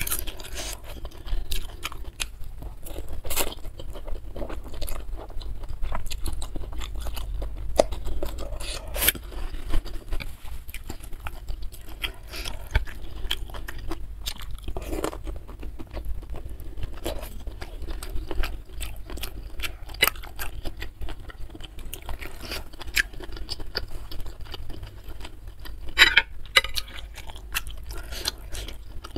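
Close-miked eating: wet chewing and biting of instant noodles and squid, with many short irregular clicks and smacks and a louder burst near the end.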